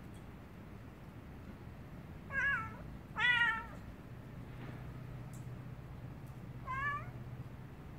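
A stray cat meowing three times: two short meows close together about two and a half seconds in, and a third near the end.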